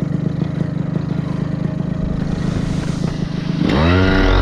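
Paramotor engine running at a steady idle with a fast, even firing beat, then revving up near the end, its pitch rising and getting louder.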